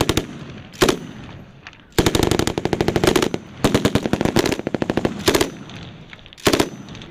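Belt-fed machine gun firing in repeated bursts of automatic fire, about six in all, mostly short, with one longer burst of over a second about two seconds in. Each burst's report rings on between bursts.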